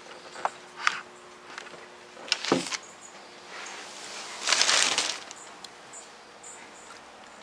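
A few light clicks and knocks, with a brief rustling scrape about halfway through: objects being handled.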